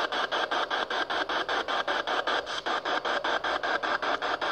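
PSB7 spirit box sweeping through radio stations: radio static chopped into rapid, even pulses, about seven a second.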